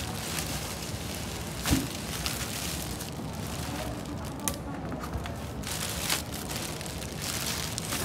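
Thin plastic wrapping bag rustling and crinkling as hands pull it off a boxed microwave oven, with a sharp knock just under two seconds in and a few lighter clicks.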